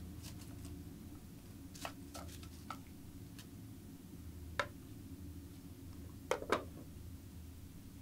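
A few scattered small clicks and taps over a steady low hum, the loudest being two close together about six and a half seconds in.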